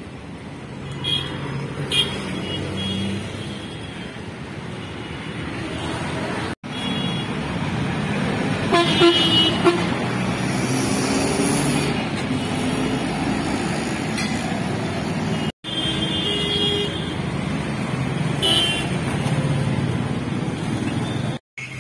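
Busy road traffic running steadily, with several short car-horn toots. The sound drops out abruptly twice for a split second.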